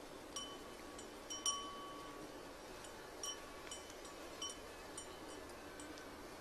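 Small metal bell clinking lightly and irregularly, several short rings spread through the seconds over a faint steady hiss.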